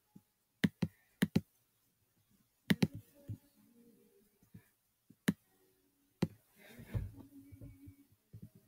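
Computer mouse clicking: several separate sharp clicks, some in quick pairs, scattered through the pause.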